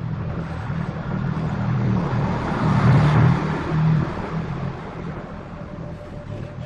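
A motor-driven machine running with a steady low hum, its noise swelling about halfway through and then easing off.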